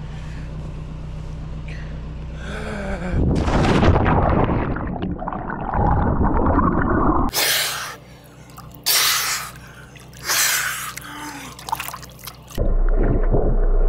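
A swimmer jumps from a boat into the sea with a loud splash about three seconds in, then a muffled rush of bubbles as the camera goes underwater, followed by several short bursts of gasping, sputtering breath and splashing water on surfacing. A boat engine idles with a steady low hum before the jump and again near the end.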